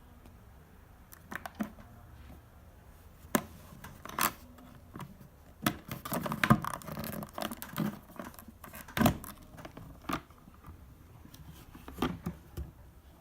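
Irregular mechanical clicks and knocks from an Olympia SM3 portable typewriter being handled and worked, with a busier flurry of clatter in the middle and two sharper knocks standing out.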